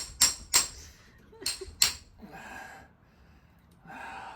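Hammer striking a metal internal pipe extractor driven into a broken-off plastic pipe: five sharp, ringing metallic hits in the first two seconds, then two softer, noisier sounds.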